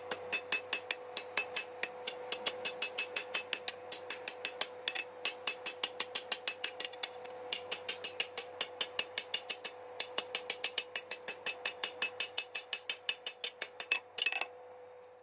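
Blacksmith's hammer striking steel on the anvil in quick, even blows, about four to five a second, with a few short pauses, over a steady hum. The hammering stops about a second before the end.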